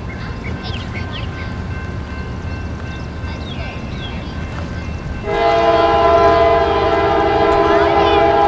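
Air horn of a GE C40-8W diesel locomotive leading an approaching freight train, starting about five seconds in as a loud chord of several notes held steadily. A low rumble from the approaching train runs underneath.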